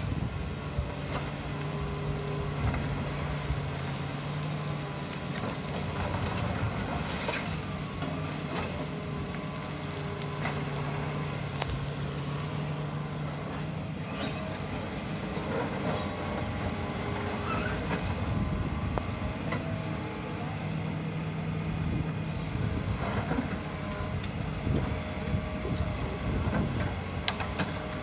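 Fiat Kobelco EX355 crawler excavator's diesel engine running, its note rising and falling under hydraulic load as it digs and swings, with scattered knocks and clatter of gravel in the bucket.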